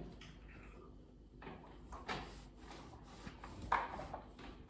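A few faint knocks and scrapes of household objects being handled, with short sounds about one and a half, two and nearly four seconds in.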